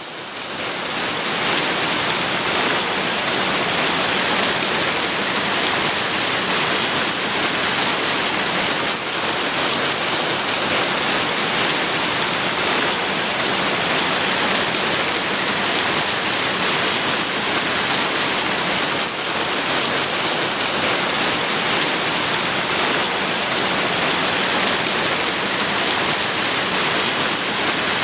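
Steady hiss of falling water, rising in over the first second and then holding even throughout.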